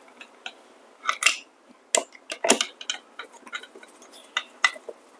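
Irregular metal clicks and clinks from handling the DF64 coffee grinder's body, base and screws as the base is screwed back on, with a few louder knocks in the middle.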